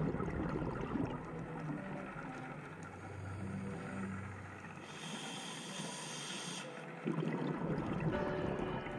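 Underwater noise picked up by a diver's camera: the crackly bubbling of a scuba diver's breathing, with a high hiss of an in-breath through the regulator about halfway through and a louder rush of exhaled bubbles starting suddenly near the end.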